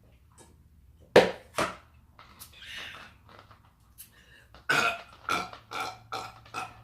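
Loud burps: a sharp one about a second in, the loudest, then another half a second later, followed by a run of shorter, quicker sounds in the second half.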